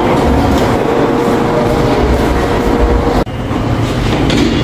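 Busan Metro subway train running: a steady rumble of wheels on rails with a faint steady whine. The sound drops out suddenly for an instant a little after three seconds in, then the rumble carries on.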